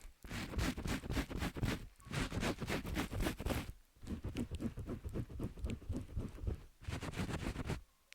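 Fingers rubbing and massaging ears close up, making quick rubbing, patting strokes in bursts of one to two seconds with brief pauses between them.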